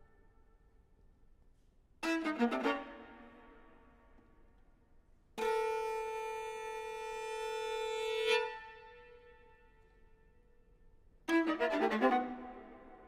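Solo viola playing in separate phrases: a quick run of notes about two seconds in, then a long high note that swells and breaks off, then another quick run near the end, with near-quiet pauses and the hall's reverberation dying away between them.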